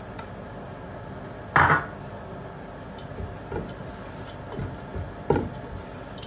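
Kitchen utensil knocking against a cooking pot as chopped carrots go into the oil: a few separate knocks, the loudest about a second and a half in and another about five seconds in.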